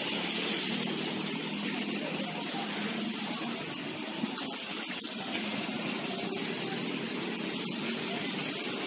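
Steady hiss of rain with car engines running at idle underneath.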